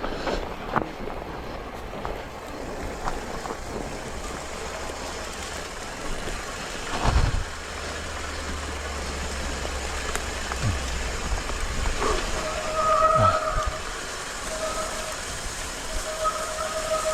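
Electric mountain bike climbing a steep trail: a steady rough riding and rattling noise, with a heavy knock about seven seconds in. From about twelve seconds a whining tone comes and goes.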